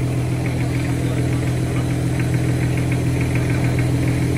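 A vehicle engine idling steadily, with a faint rapid ticking over the hum.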